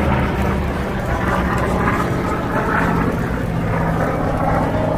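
Aircraft flying overhead in a display, its engine a steady, even drone.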